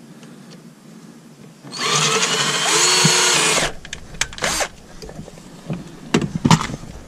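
A cordless drill runs for about two seconds on a stripped steering-wheel hub bolt, spinning up and then holding a steady whine. Several short clicks and knocks follow as the drill and bolt are handled.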